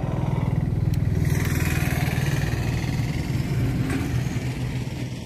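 An engine running close by, growing louder over the first couple of seconds and then holding steady.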